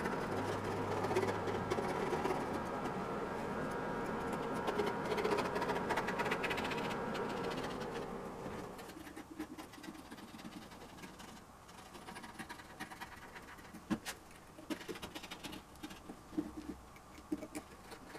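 A steady hum with a few faint held tones fades away over the first eight seconds or so. Then a knife cutting and trimming carpet on a wooden box makes short, irregular scratching and clicking sounds, with one sharp click about fourteen seconds in.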